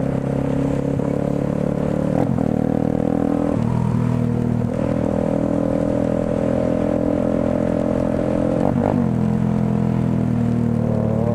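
Motorcycle engine running steadily while riding, heard from on the bike; the engine note changes pitch about two seconds in, again a second or so later, and once more near the end.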